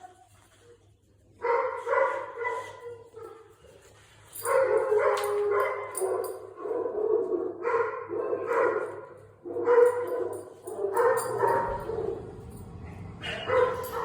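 Dogs barking and yipping in repeated bouts of a second or two, with short pauses between.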